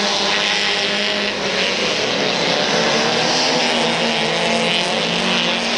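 Engines of several autocross race cars running hard on a dirt track, a steady mixed drone of engine notes at overlapping pitches.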